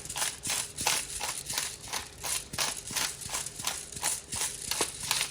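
Fettuccine carbonara being stirred in a pan: a rhythmic wet scraping and stirring, about three or four strokes a second.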